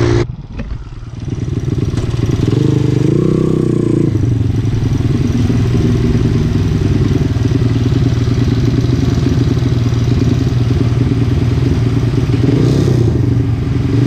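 Small four-stroke single-cylinder trail-bike engine running under way, revving up briefly about two to three seconds in and then holding a steady cruise. Heavy wind noise on the microphone.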